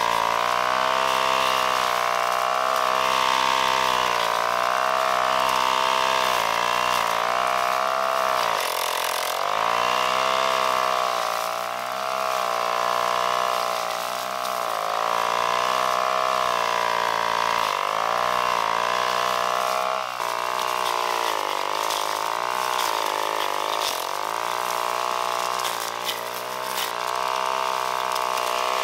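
A power tool's motor running continuously, its pitch sagging briefly every few seconds and recovering, as when the tool bites into the work under load.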